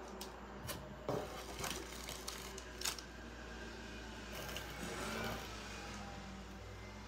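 Handling noises: a few light clicks and crinkles as sample sachets are laid down on a table, then a longer rustle as a clear plastic mesh zip pouch is lifted out of a cardboard box.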